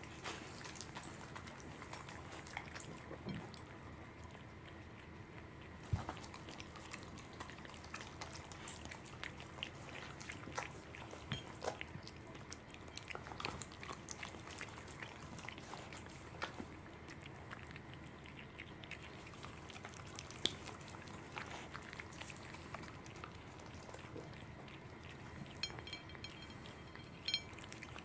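A cat and a corgi eating raw salmon pieces: faint, scattered wet chewing and lip-smacking clicks, with one sharper knock about six seconds in.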